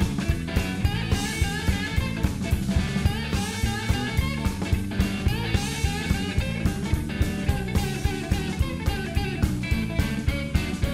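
Upbeat background rock music with guitar and a steady drum beat.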